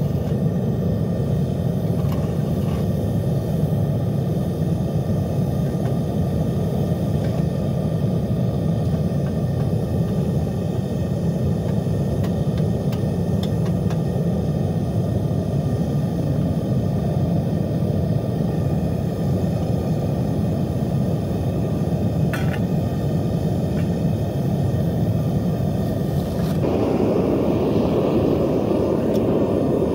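Propane burner of a homemade trash-can foundry furnace running steadily, a constant low rush of burning gas while it heats aluminium scrap. Near the end the sound grows louder and brighter as the furnace lid comes off and the hot chamber is opened.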